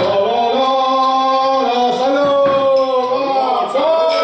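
Male voices singing in long held notes that shift slowly in pitch.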